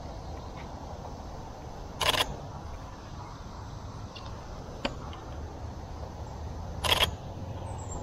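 Pentax K-3 Mark III DSLR shutter firing: two short bursts of shutter clicks about five seconds apart.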